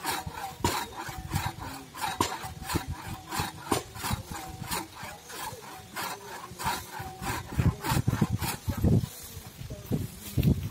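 Two-man crosscut saw cutting through a log by hand, its teeth rasping through the wood in steady strokes about three times a second. The strokes stop about eight seconds in, followed by a few dull thumps.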